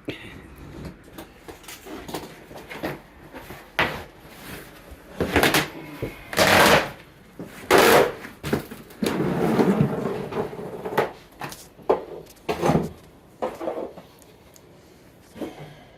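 Linoleum being cut through with a razor knife, in a series of irregular scraping, rasping strokes, the longest and loudest in the middle.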